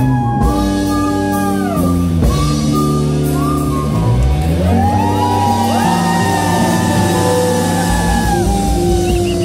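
Live rock band playing with electric guitar, bass guitar and drums, and a man singing long held notes into the microphone over them.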